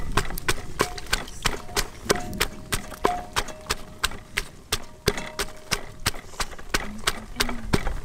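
Wooden pestle pounding garlic cloves and red chilies in a clay mortar, a steady run of dull knocks about three a second.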